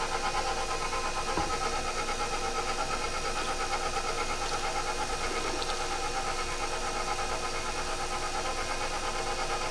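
KitchenAid Professional 600 stand mixer running at a steady speed, its wire whip beating egg yolks and sugar in the steel bowl: a steady motor whir with a fast, even pulse.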